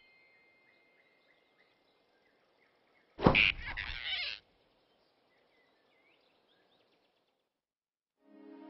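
Animated-film sound effects: faint bird chirps over quiet forest ambience, then about three seconds in a sudden loud grab with a shrill squeal-like noisy burst lasting about a second as the flying squirrel is seized in a fist. Soft music fades in at the very end.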